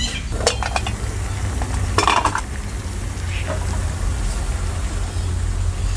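A metal utensil clinking and scraping against a cooking pot in short clusters, at the start and again about two seconds in, over a steady low rumble.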